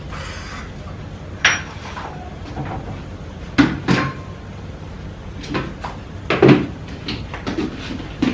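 Dishes, pots and a casserole lid clattering as they are handled and set down on a kitchen counter: a string of separate knocks and clinks, irregularly spaced, with one ringing clink about a second and a half in.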